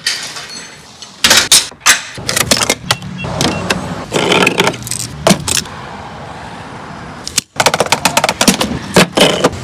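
Repeated sharp metal clanks and rattles over a vehicle engine's steady low running. The sound cuts out briefly near the end, then a quick run of clanks follows.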